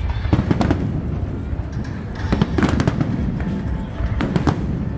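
Fireworks display: bursts of sharp bangs and crackles over a continuous low rumble of distant explosions, in clusters near the start, in the middle and near the end, with music playing alongside.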